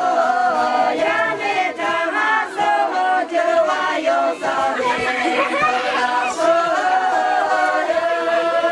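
A group of women singing together unaccompanied in a traditional village song, with long held notes and no instruments.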